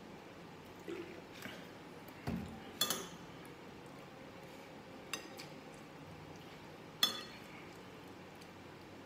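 Metal spoon and fork clinking against glass dishes while eating: three sharp, ringing clinks a couple of seconds apart, with a dull knock on the table just before the first and a few soft taps before that.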